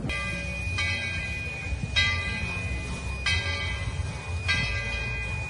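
Steam locomotive's bell ringing, one stroke roughly every second and a quarter, over a low steady rumble.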